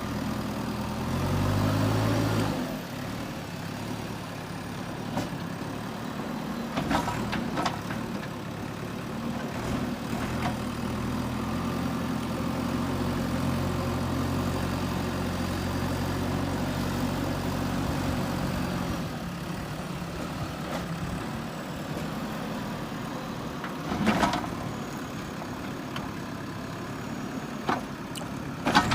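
JCB 3DX backhoe loader's diesel engine running steadily, revving up briefly about two seconds in, with a few short knocks scattered through.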